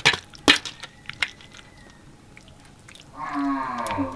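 Sharp clinks of a metal spoon against a metal serving tray and ceramic plate as dumplings are dished out, three in the first second or so. Near the end comes a drawn-out call that falls in pitch.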